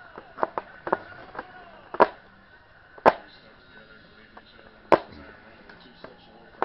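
Sharp clicks and knocks from a knife and hands working at the thick plastic straps on a cardboard toy box: a few light ticks at first, then three loud sharp snaps at irregular intervals.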